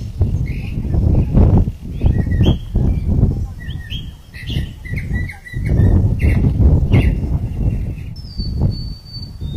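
Birds chirping in short calls, with one longer whistled note near the end, over gusty wind rumbling on the microphone.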